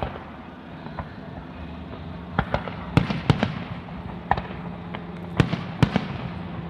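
Aerial firework shells bursting: a string of sharp bangs, about ten in all, one at the very start, then sparse before coming in quicker succession from about two and a half seconds in.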